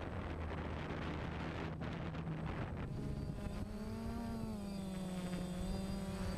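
DJI Phantom quadcopter's motors and propellers whirring, heard from the camera on the drone, with wind noise on the microphone. About three seconds in, a steady pitched hum comes through, rising a little in pitch and then settling lower as the motor speed changes.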